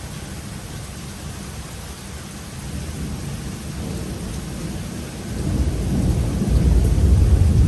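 Steady rain falling, with a low thunder rumble building up about five seconds in and growing loud toward the end.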